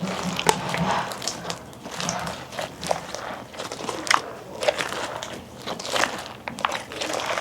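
Homemade slime being squeezed and kneaded by hand, giving irregular sticky clicks and pops.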